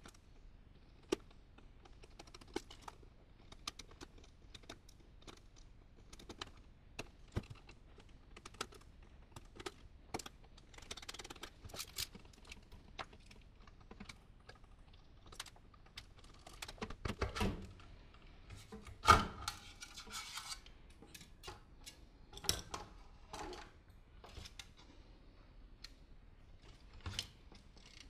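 Scattered small clicks, taps and rustles of tools, screws and wiring being handled in a sheet-metal electronics chassis during disassembly. One louder sharp knock comes about two-thirds of the way through.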